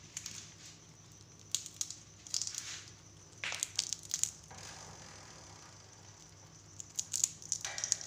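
Indian ringneck parakeets cracking and crunching peanuts in their beaks: irregular clusters of sharp cracks and crunches, with pauses between them.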